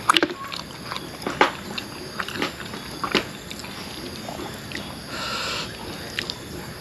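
Close-up eating sounds: a man chewing and gnawing grilled pork rib meat, with scattered wet smacks and clicks and a brief rustling sound about five seconds in.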